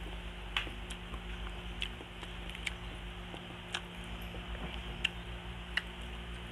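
Eating sounds: sparse small wet clicks and smacks, roughly one a second, from closed-mouth chewing and fingers picking apart fried fish, over a steady low hum.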